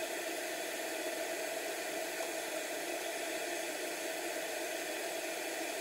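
A steady hiss with a faint steady tone, from a small bench fume-extractor fan running.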